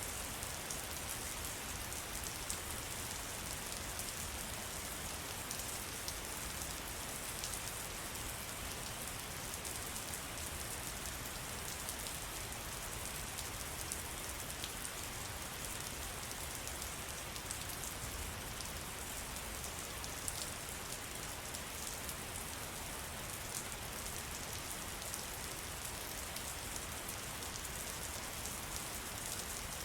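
Steady rain falling in a forest, an even hiss scattered with the fine ticks of individual drops hitting leaves and surfaces.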